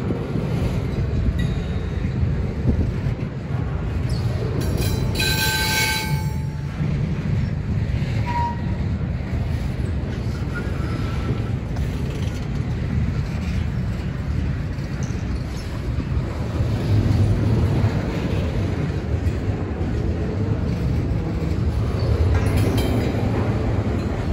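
Double-stack intermodal freight train rolling past: a steady low rumble of wheels and cars on the rails, with a brief high-pitched wheel squeal about five seconds in.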